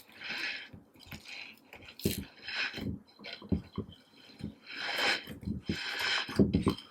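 Slime being squished and folded by hand: irregular wet squelches with small sharp clicking pops, several a second.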